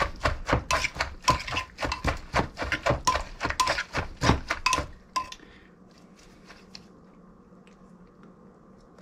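Wooden pestle and metal spoon knocking and scraping in a mortar as green papaya salad is pounded and tossed, about three strokes a second with a light clink on some. The strokes stop about five seconds in, leaving a faint room hum.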